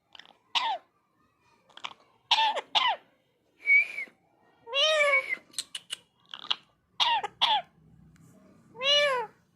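Indian ringneck parrot calling: about ten short calls in a row, each rising and then falling in pitch.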